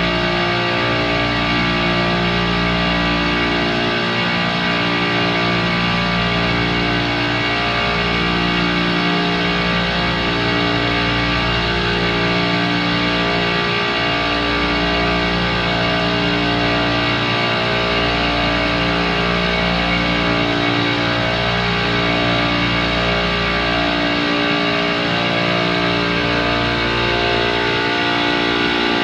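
Background music with distorted electric guitar playing sustained chords that change every couple of seconds.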